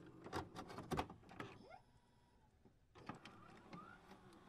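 Glitch sound effects for a 'loading' intro: rapid clicks and short electronic whirrs that rise in pitch, with a brief lull in the middle.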